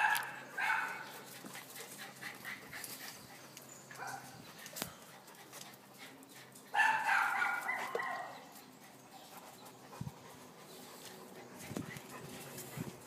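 A dog barking in a few short bursts, with a longer drawn-out call about seven seconds in.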